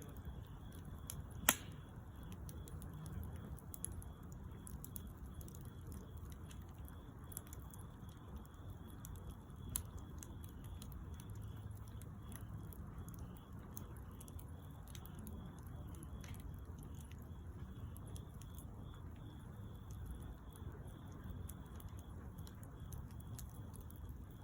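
A wood bonfire burning, with scattered small crackles over a low steady rumble and one sharp pop about a second and a half in.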